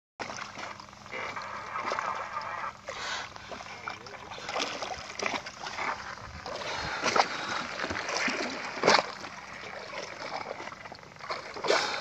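Sea water splashing and lapping beside a boat as Indo-Pacific humpback (pink) dolphins surface alongside, with several sharper splashes at intervals.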